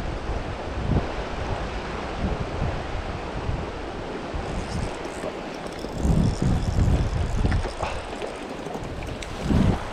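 Steady rush of flowing river water, with wind buffeting the microphone in low gusts about a second in, around six to seven seconds, and again near the end.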